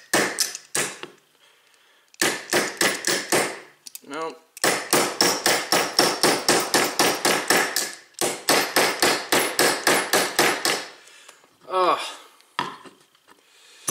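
Rapid metal-on-metal taps of a punch being struck to drive the extractor pin out of a Beretta 92 slide, in runs of about five or six blows a second with short pauses between. The pin is very tight and hard to drive out.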